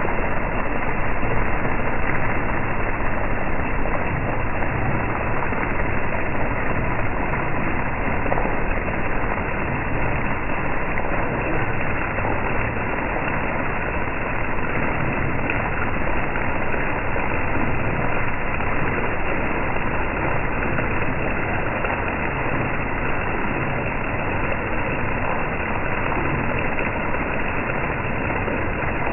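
Heavy rain pouring steadily on a street and an overhead awning, water running and dripping off the awning edge.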